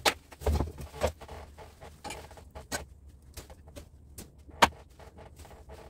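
Clicks and knocks of metal hand tools being handled at a bench vise while stripping scrap copper wire: pliers and a knife picked up and set down on the workbench. Several sharp knocks come in the first second, then scattered lighter clicks and one louder knock a little past the middle.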